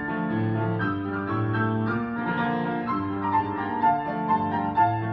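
Piano playing a classical passage: chords that change every half second or so over held bass notes.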